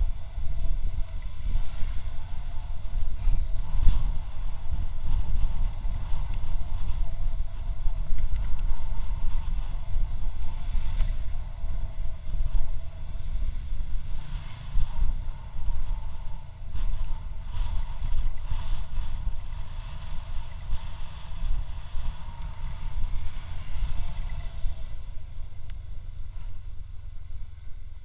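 Motorcycle riding at speed: wind rumbling and buffeting on the microphone over the steady drone of the engine. The sound drops off over the last few seconds.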